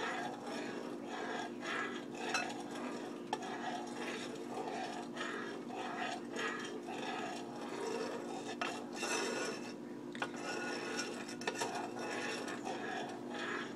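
A utensil stirring honey in a saucepan on the stove as it heats toward a boil, scraping and clinking against the pan in an uneven rhythm about once a second. A steady low hum runs underneath.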